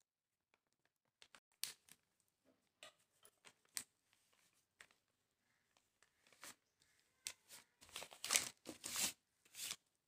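Plastic zip-lock bag crinkling and crackling under a wooden rolling pin as it is pressed and rolled over the dough inside. Scattered soft crackles, growing denser and louder near the end.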